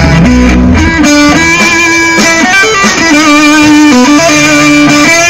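Loud amplified electric guitar playing a line of held notes that change pitch every half second or so, during a rock band's soundcheck; a low bass tone under it stops about a second in.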